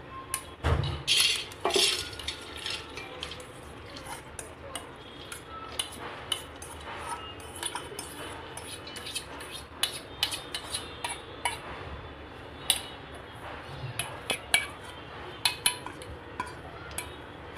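Washed chana dal (split chickpea lentils) being tipped from a steel bowl into a pressure cooker. The bowl knocks against the cooker a few times about a second in, then come many small irregular clinks and rattles as the bowl is tapped and the lentils are scraped out by hand.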